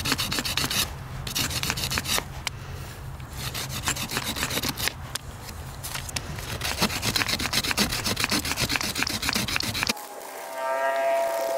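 Gritty sandstone scraped rapidly back and forth along a dry seep willow (mule fat) hand-drill stem, a quick even rasping that smooths the knots off the drill. About ten seconds in it cuts off suddenly and music begins.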